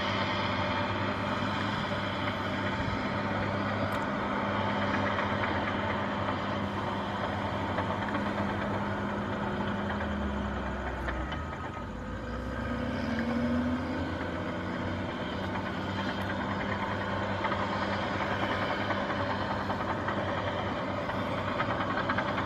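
Vehicle engines running steadily, with a brief dip about eleven seconds in and a short rising whine around thirteen seconds.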